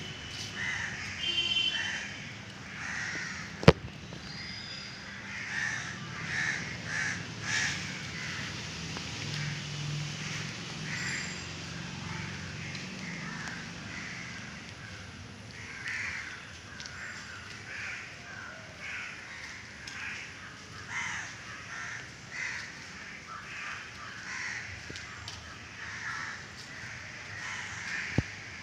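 Crows cawing again and again, with short calls coming every second or so, and one sharp click a little under four seconds in.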